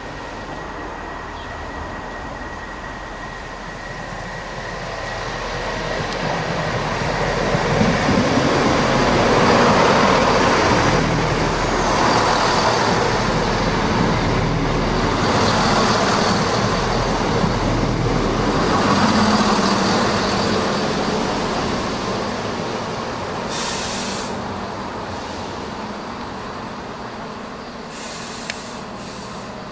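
A Chiltern Railways Class 168 diesel multiple unit running past close by. The noise of its underfloor diesel engines and wheels on the rails builds to a peak about ten seconds in and fades slowly over the next ten seconds.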